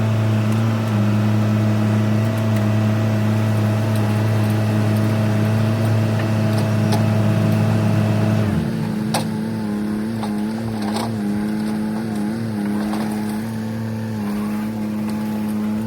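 Heavy earthmoving machine's diesel engine running steadily under load. About eight seconds in, its note drops and wavers, with a few sharp knocks and clanks.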